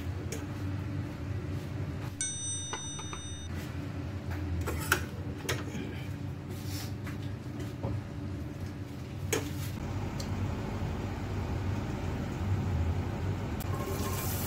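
A metal serving spoon scraping and knocking against a stainless steel pot and a ceramic plate as chicken in tomato sauce is dished out, heard as scattered clicks over a low kitchen hum. Near the end a sizzle starts as chopped onion hits hot oil in a steel pan.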